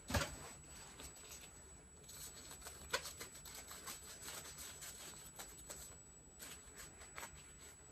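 Faint rustling and light clicks of small objects being handled, with a soft knock at the start and another about three seconds in.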